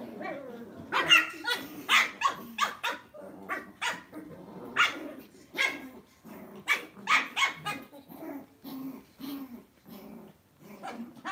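Two Lhasa Apso dogs play-fighting, growling with repeated short, sharp barks.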